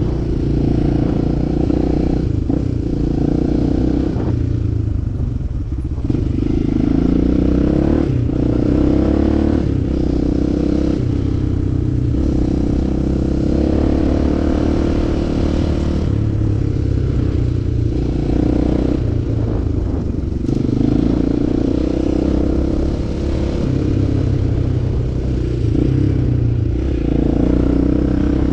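Enduro motorcycle engine running continuously while ridden off-road, rising and falling with the throttle, with clatter from the bike over rough ground.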